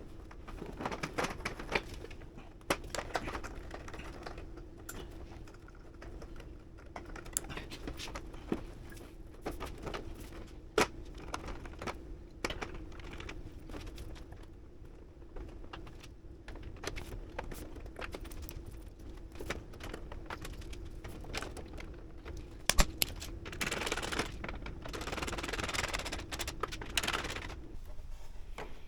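Scattered light clicks, taps and knocks of plastic parts and fasteners being handled as a motorcycle's lower fairing is refitted, with one sharper knock about 23 seconds in and a denser rustling stretch a little after, over a steady low hum.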